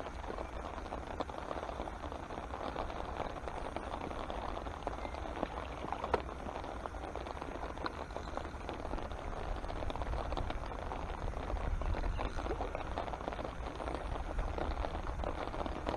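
Steady rain pattering on the pond, a dense hiss of small drops, with a constant low rumble underneath and a single sharp click about six seconds in.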